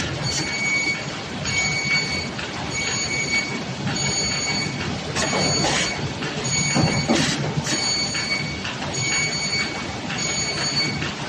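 Three-knife book trimmer running: a steady mechanical clatter with a short high-pitched whine recurring about once a second, and a few sharp clacks as the knives and clamp work.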